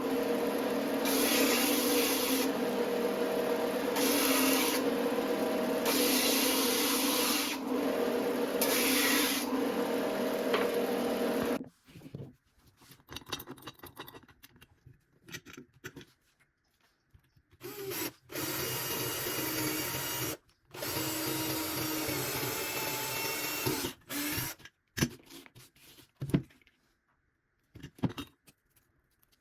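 Electric power tool working wood: a steady motor run for about twelve seconds with a hiss that swells about every two seconds, then scattered clicks and knocks, then two shorter runs of the tool and more clicks near the end.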